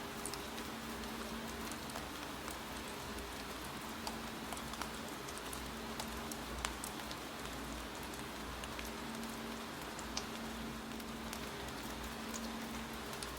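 Steady rainfall, an even hiss of falling rain with a few sharper isolated ticks of drops or taps scattered through it.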